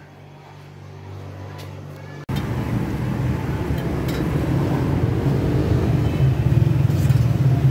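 Faint low room hum, then, about two seconds in, a sudden change to louder, steady street noise: a low rumble of traffic, with laddu pithi frying in a wok of hot oil.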